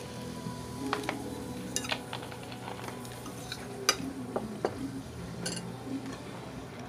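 Metal fork clinking and scraping against a glass plate while eating, in scattered light clicks with one sharper clink about four seconds in.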